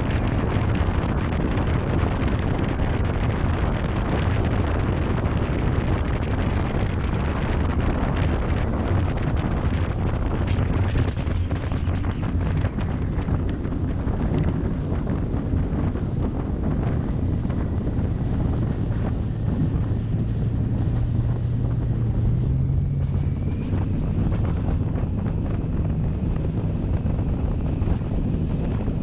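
Wind buffeting the microphone and water rushing along the hull of a 26-foot Cheetah Wildcat deck boat running at speed, with the engine's low drone underneath. The wind and water noise thins through the second half as the boat slows from about 64 mph to about 11 mph.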